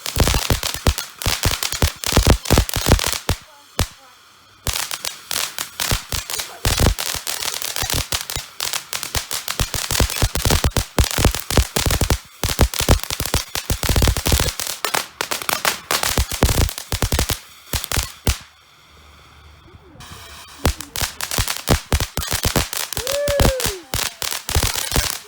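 Fireworks going off in rapid runs of sharp bangs and crackles, with two brief lulls between salvos.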